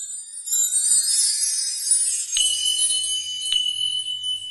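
Intro music of high jingling bells; about two and a half seconds in a steady high tone comes in with a click, and a second click follows a second later.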